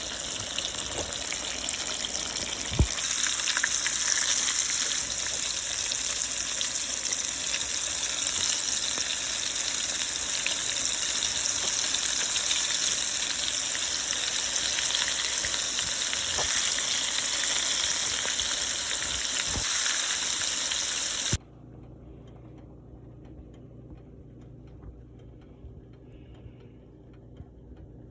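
Battered seafood deep-frying in hot oil: a steady, loud sizzle that grows louder after a knock about three seconds in. The sizzle cuts off suddenly about 21 seconds in, leaving only a faint low hum.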